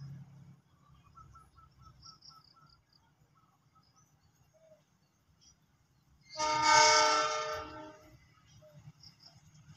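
KAI CC 206 diesel-electric locomotive horn sounding one long blast of about a second and a half from the approaching train, after faint bird chirps. After the horn a low rumble grows louder as the train comes closer.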